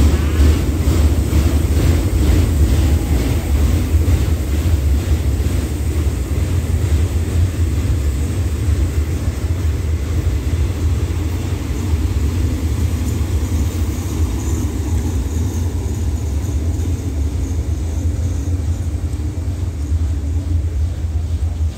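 Diesel train running through the station: a loud, steady, deep engine rumble with a regular beat, easing off a little in the second half.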